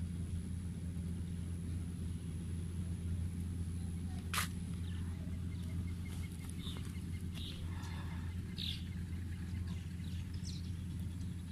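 Steady low rumble, with birds chirping in short high calls from about the middle on. A single sharp click comes a little before the birds.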